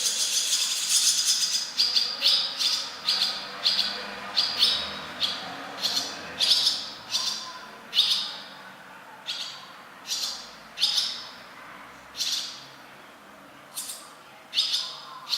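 Small birds chirping: a dense run of high calls at first, then single short chirps about once a second, spacing out toward the end.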